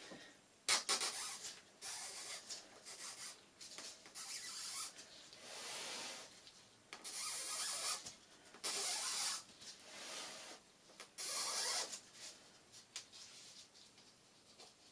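Irregular rubbing or scuffing strokes of hand work on a surface, each lasting a second or less, with a sharp tap less than a second in.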